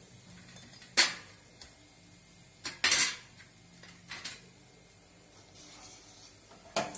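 A few sharp metallic clinks as a perforated steel skimmer knocks against a glass bowl and a steel plate while fried pakodas are set down; the loudest clink comes about a second in.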